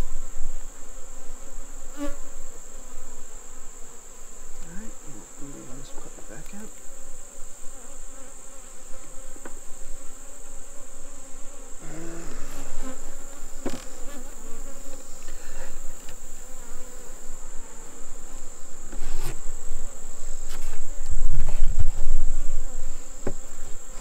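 Honeybees buzzing around an open, disturbed hive, over a steady high-pitched insect trill. Occasional sharp wooden knocks come as hive boxes and frames are set down, and there is a low rumble near the end.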